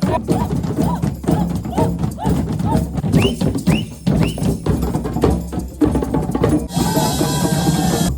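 Music led by percussion: a steady run of drum and wood-block-like strikes with short pitched figures over them. A bright wash of high sound joins near the end.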